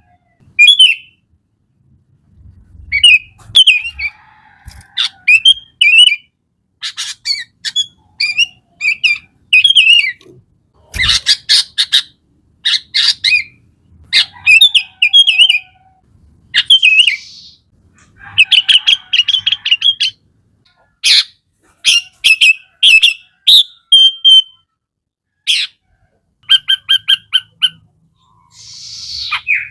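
Sooty-headed bulbul (kutilang) singing loudly in short bubbly phrases of quick, sharp notes with brief pauses between them. Near the end it gives a fast run of even repeated notes.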